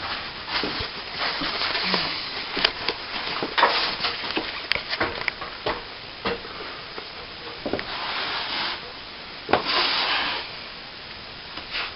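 Steel plastering trowel scraping and swishing over wet cornice cement on a plasterboard ceiling patch, in a series of strokes with short sharp clicks and taps in between, as the compound is floated flat.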